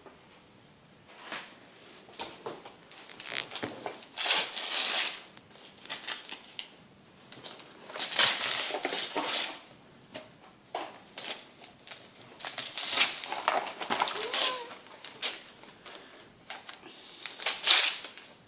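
Wrapping paper on a gift being torn and crumpled by hand, in several separate rustling bursts with short pauses between.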